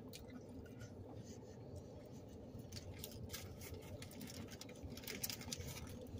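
Faint eating sounds: small clicks and crinkles from a foil-wrapped burrito being handled and chewed, growing busier in the second half, over a low steady background noise.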